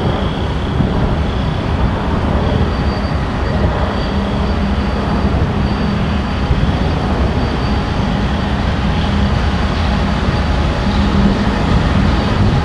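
Diesel locomotives, a Norfolk Southern unit leading and a second unit behind it, running with a steady low drone as they pull a freight train past. The rumble of freight cars rolling by follows as the hoppers pass.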